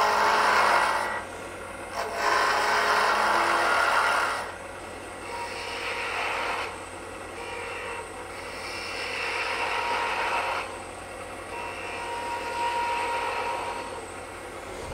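Turning tool cutting a spinning maple blank on a wood lathe, shaving it down in several long passes. The first two passes are louder and the later ones lighter, all over the steady hum of the running lathe.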